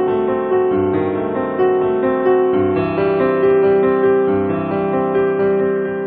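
Background piano music: notes struck about once or twice a second and left to ring.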